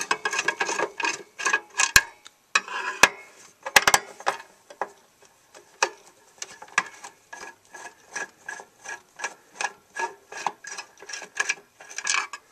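Screwdriver turning out a screw in a computer case: a run of sharp clicks, irregular at first, then settling into a steady rhythm of about three clicks a second.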